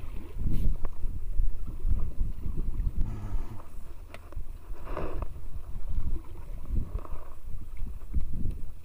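Wind buffeting the microphone on a small wooden boat at sea, with water lapping and splashing against the hull; a brief splash stands out about five seconds in.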